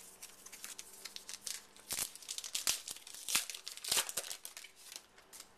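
Foil wrapper of a pack of baseball trading cards being torn open and crinkled in the hands: a run of sharp crackles, loudest about two seconds in and again between three and four seconds in.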